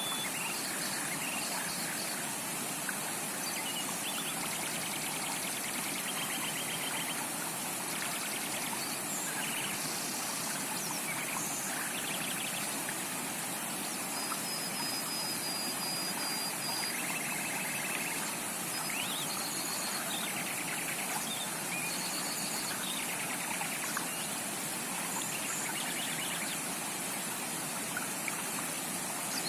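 Steady rush of a tropical forest creek, with short bird chirps and rapid trills scattered over it. A thin high whistle is held for a couple of seconds about halfway through.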